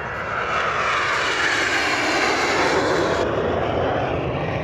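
Airshow aircraft flying past: a loud rushing engine noise that swells at first and then falls steadily in pitch as it goes by.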